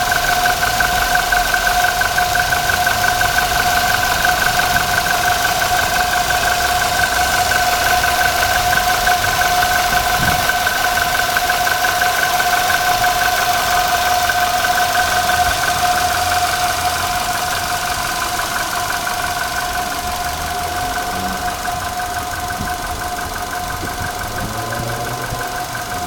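Nissan Cube Cubic's engine drive belt squealing, a steady high-pitched squeal over the idling engine, from a belt slipping on its pulleys. The squeal weakens and the sound gets a little quieter after about two-thirds of the way through.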